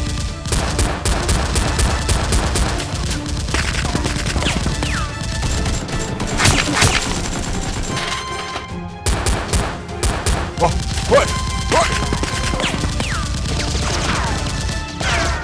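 Rapid gunfire sound effects over background music: two bursts of fast, evenly spaced shots, about a second in and again past the middle, with scattered single shots and several falling whistle-like sweeps.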